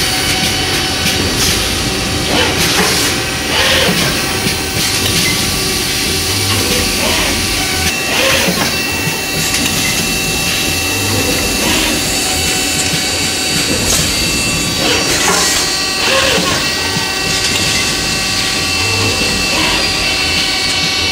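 Running noise from an in-mould-labelling robot working an injection moulding machine. A steady mechanical hum carries several constant tones, broken every few seconds by short pneumatic air hisses as the robot cycles.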